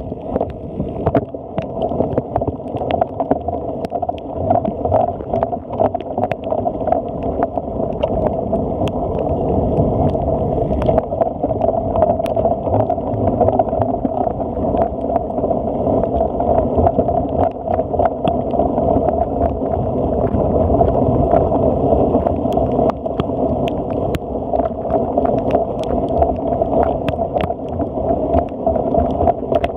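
Steady wind rumble on the microphone of a camera riding along on a cyclocross bike, with frequent sharp clicks and rattles as the bike jolts over bumpy ground.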